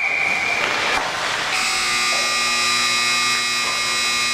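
A short high whistle blast, then an arena scoreboard buzzer sounding one steady, raspy blast for about three seconds, starting about a second and a half in.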